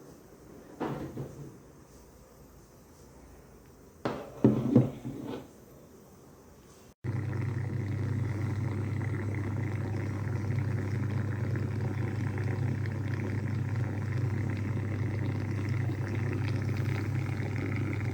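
A few handling knocks from the plastic steamer parts, about a second in and again around four to five seconds in. Then, after a sudden change about seven seconds in, the electric steam vaporizer is running: a steady low hum under a steady noise.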